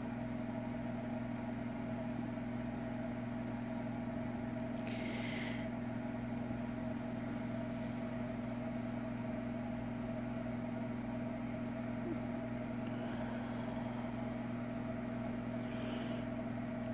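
A steady low electrical hum, like a household appliance or fan, with two brief soft rustles, one about five seconds in and one near the end.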